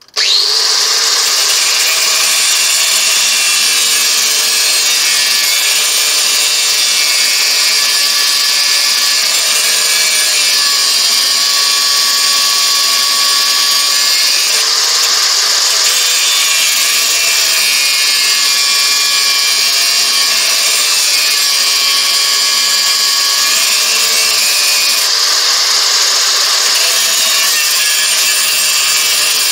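Angle grinder switched on and cutting into the high-carbon steel of an old metalworking file held in a vise: a loud, steady high whine over a harsh grinding hiss as the disc bites the steel.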